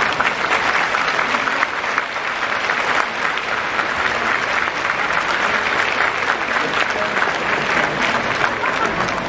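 A large arena audience applauding: dense, steady clapping.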